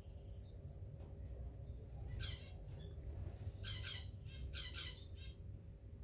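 Munias chirping in an aviary: a few short high notes at the start, then bursts of quick, rapid chirps in the middle and the second half, over a faint steady low rumble.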